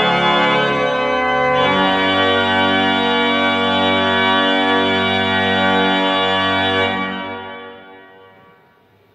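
Organ playing the closing chords of a hymn: the chord changes about a second and a half in, and the final held chord is released about seven seconds in and dies away over a couple of seconds.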